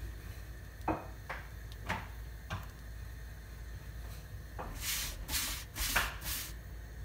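A hand rubbing and pressing a chapati against a hot flat pan, making about four short swishes in quick succession in the second half. A few light knocks come earlier, over a steady low hum.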